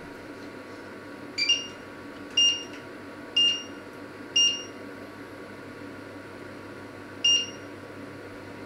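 Touch-control panel of a glass-ceramic hob beeping as its buttons are pressed: four short, high beeps about a second apart, then one more a few seconds later.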